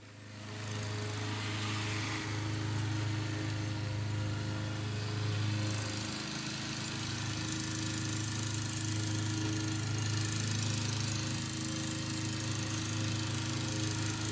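Petrol lawn mower engine running at a steady speed, fading in over the first second.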